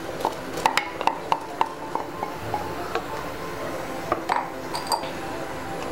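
A wooden spatula stirs grated coconut into boiling water in an aluminium pot, knocking and clinking against the pot in a string of sharp taps, over a steady hiss of the boiling water.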